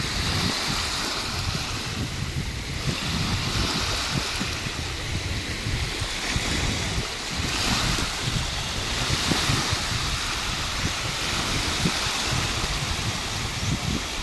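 Small sea waves washing over a shallow shore, their hiss swelling and fading every few seconds, with wind buffeting the microphone as a ragged low rumble.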